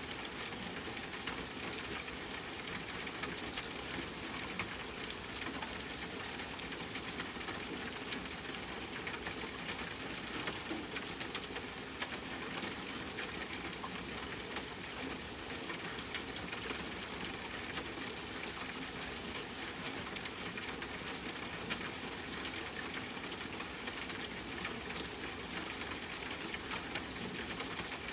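Steady rain falling, an even hiss with scattered sharp clicks of drops striking nearby surfaces.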